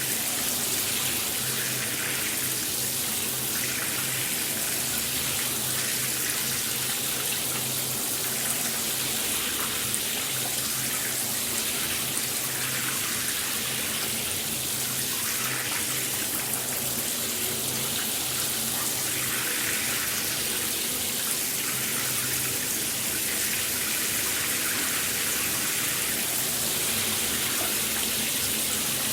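Shower spray running steadily, water hissing as it falls, with a faint low hum underneath.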